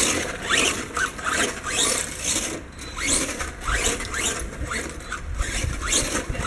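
Electric motor and gears of a Blackout XTE Pro RC monster truck whining in short rising bursts, about two a second, as it repeatedly accelerates, with a low rumble in the second half.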